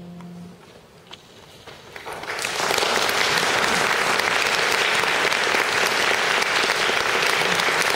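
The last notes of a concert harp ringing out and stopping, a moment of quiet with a few scattered claps, then an audience breaking into steady applause about two and a half seconds in.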